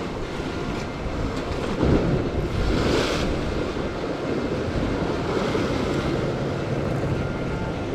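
Sea surf washing against shore rocks, with wind buffeting the microphone; a wave surges up with a louder hiss about two to three seconds in.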